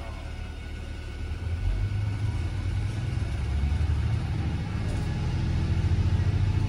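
Diesel engine of a KiHa 40 railcar heard from inside the passenger cabin: a low rumble that grows louder about a second and a half in as power is applied, then holds.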